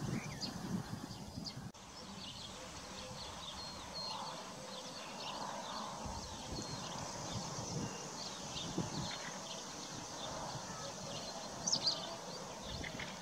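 Horses grazing, tearing and chewing grass, with small birds chirping throughout.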